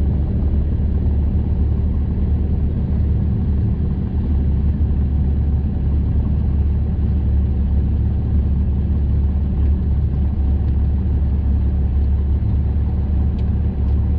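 Light single-engine propeller airplane's engine running steadily at low power, heard from inside the cockpit, as the plane rolls out and taxis after landing.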